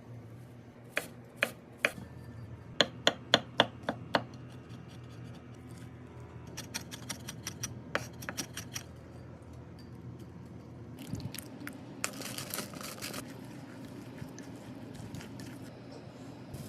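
Kitchen knife chopping vegetables on a cutting board: a few single strokes, then a quick run of about eight loud chops, then lighter, faster chopping. About eleven seconds in comes a couple of seconds of scraping noise.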